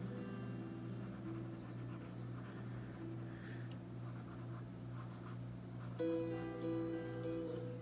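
Colored pencil scratching on paper in repeated short shading strokes, over soft background music of sustained notes that swells with a new chord about six seconds in.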